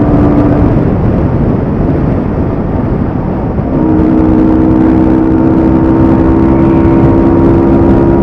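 Yamaha R15M's 155 cc single-cylinder engine, fitted with a high-performance air filter, running on the move. Its steady note fades into a rushing noise about a second in, then comes back as a steady note about four seconds in.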